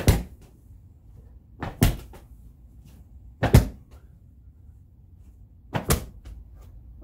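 Slam ball slammed onto a concrete floor four times, about every two seconds, each slam a quick double thud.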